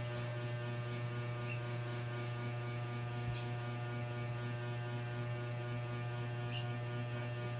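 A steady low hum, with a faint fast-pulsing high tone over it and three faint clicks spread through it.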